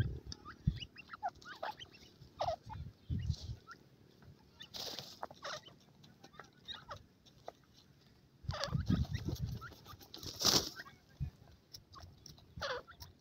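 Young grey francolins giving many soft, short chirping call notes while dust-bathing in dry dirt, with a few brief bursts of scuffling in the soil.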